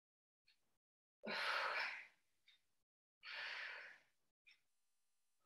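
A woman's heavy breathing: two long breaths about two seconds apart, the first louder, the breathing of exertion during exercise.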